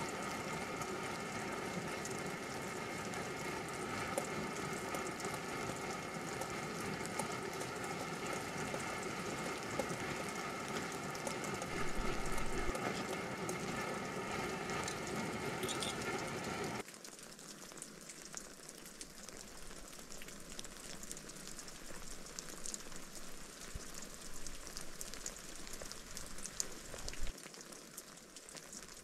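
Canister gas stove burning under a steaming pot that is simmering. About seventeen seconds in it cuts suddenly to a quieter patter of rain on the tent fly, with drips from its edge.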